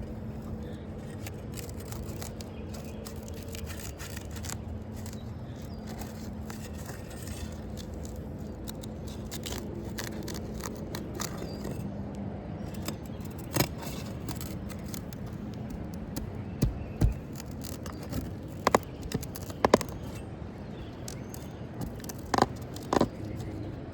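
A hand tool scraping and prying under asphalt roof shingles to pull out roofing nails, with sharp metal clicks and knocks coming more often in the second half.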